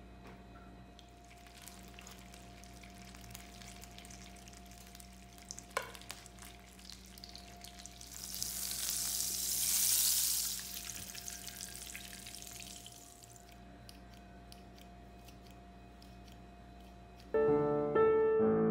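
Hot butter sizzling as it foams in a pan, the sizzle swelling to a peak about halfway through and then fading. A single clink a few seconds in, and piano music starts near the end.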